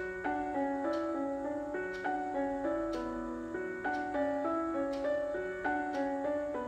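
Background piano music: a gentle melody of struck notes changing about once or twice a second.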